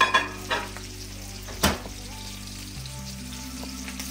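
Ribeye steak sizzling in butter in a hot frying pan, a steady frying hiss. Three sharp knocks cut through it: at the start, about half a second in, and a louder one just over a second and a half in. Quiet background music with held low notes runs underneath.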